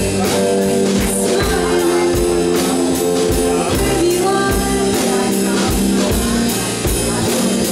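Live rock band playing: a female voice singing over acoustic and electric guitars and a drum kit keeping a steady beat.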